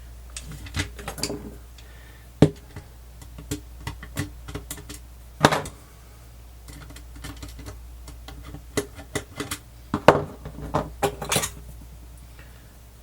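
Opened Sony WM-FX190 cassette walkman being handled: scattered clicks and taps of its small plastic and metal parts, with sharper knocks about two and a half, five and a half and ten seconds in.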